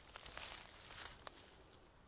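Dry fallen leaves rustling and crunching underfoot, with a few crisp crackles in the first second or so, fading to a faint rustle.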